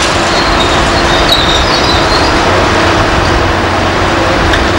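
Loud, steady din of heavy construction machinery, with a brief high metallic squeal about a second in.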